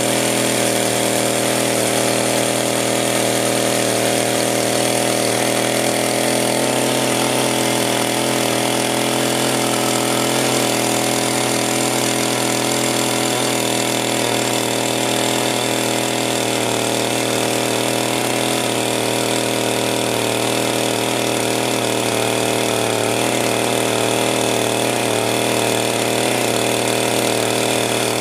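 Electric power sander running steadily on wood, switched off right at the end so that its motor pitch slides down as it winds down.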